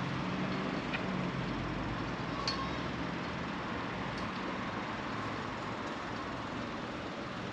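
A vehicle engine humming low under a steady wash of street noise, fading over the first few seconds, with a few faint clicks.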